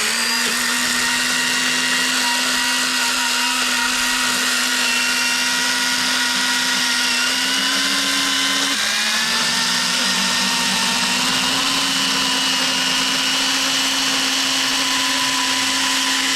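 Electric pruning saw running at full speed, a steady motor and chain whine while cutting a large branch. About halfway through, the pitch drops briefly as the saw bogs under the load, then comes back up.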